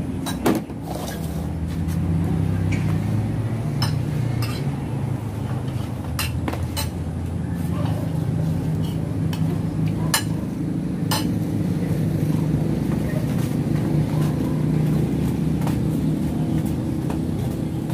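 Spoons and cutlery clinking against plates and food containers during a meal, a dozen or so sharp clinks scattered irregularly, the loudest about half a second in. A steady low rumble runs underneath.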